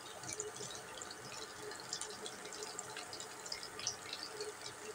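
Hot oil sizzling and crackling around flour-battered chicken pieces deep-frying in a pan: a steady, dense crackle of small pops.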